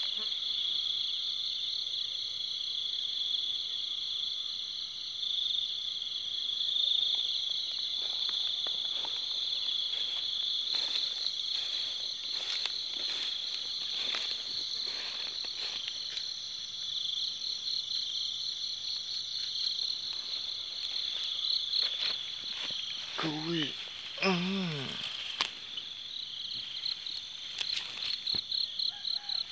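Crickets in a steady night chorus, a constant high trill with a fine pulsing texture, over scattered rustles and soft steps through grass.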